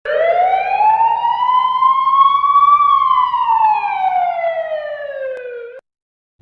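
A single slow siren wail: the pitch rises steadily for about three seconds, then falls for about three seconds and cuts off suddenly near the end.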